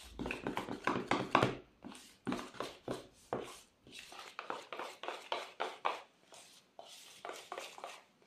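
Metal spoon stirring melted white chocolate in a plastic bowl, scraping and tapping the sides in quick strokes, about three or four a second. The cocoa butter is being mixed in to temper the chocolate.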